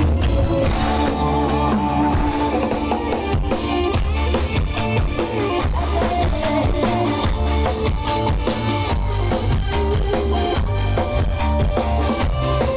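Live dangdut koplo band music played over a loud stage sound system, with a driving drum-kit beat and heavy bass under melody instruments.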